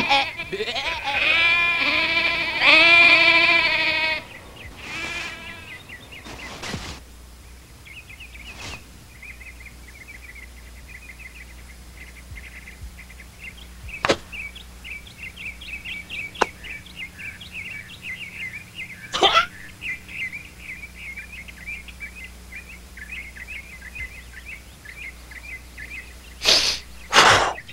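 A flock of sheep bleating over one another for about four seconds, then faint bird chirping for most of the rest. A few sharp knocks sound through it, the loudest about two-thirds of the way in, and there are two loud bursts near the end.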